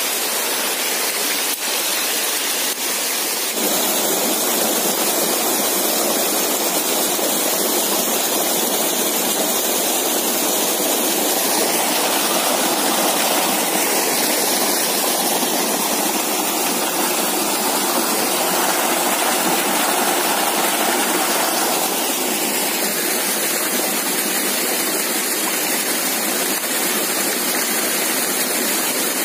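Shallow rocky jungle stream rushing and splashing over stones, a steady loud rush of water that gets a little louder about three seconds in.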